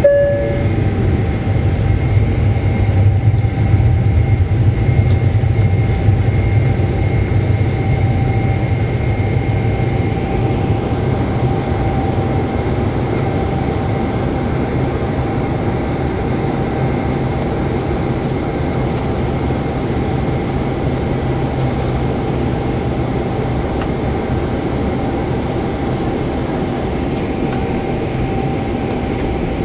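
Steady engine drone with a strong low rumble and faint steady whining tones; the deep rumble is strongest early on and slowly eases off over the second half.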